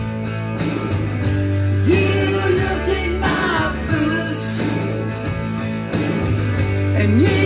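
Rock song playing, with electric guitar, bass and a singing voice.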